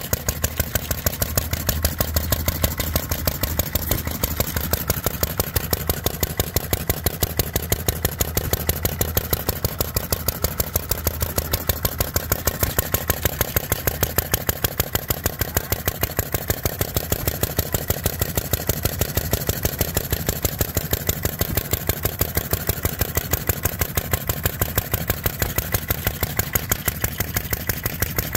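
Small vertical-cylinder model gas engine running steadily, its exhaust popping in a fast, even beat.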